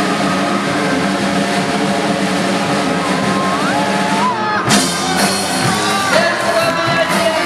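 Background music: a held chord with a few sliding melodic lines, then, about two thirds of the way in, a livelier passage with a beat and what may be a singing voice.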